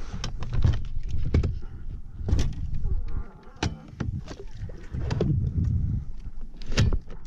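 Irregular knocks and clunks from handling a bass boat's bow-mounted trolling motor, over an uneven low rumble.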